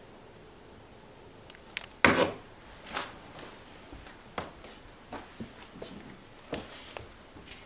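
Handling noise indoors: a series of short knocks and clicks, the loudest about two seconds in, followed by about ten lighter ones.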